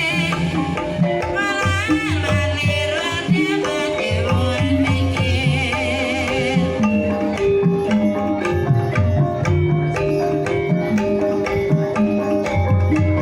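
Javanese gamelan music for an ebeg trance dance: kendang hand drums and struck metal or bamboo keys playing a steady pattern. A wavering high melody runs over it until about halfway, after which the drumming comes forward in quick, dense strokes.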